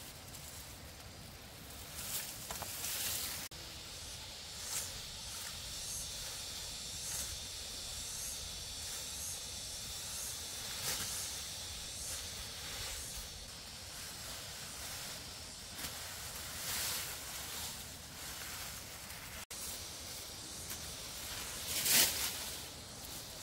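A steady high hiss with brief rustles and scrapes now and then, the loudest near the end.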